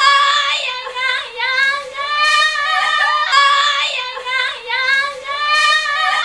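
Two women singing along loudly in high voices, a short melodic phrase repeated several times, starting suddenly.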